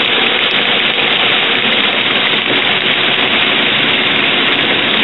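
Heavy thunderstorm rain pouring down in a steady, loud hiss.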